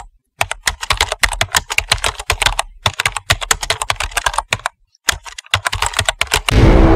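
Rapid typing on a computer keyboard: a dense run of key clicks that stops briefly twice, once just after the start and again about five seconds in. Near the end a loud hit sets off sustained music.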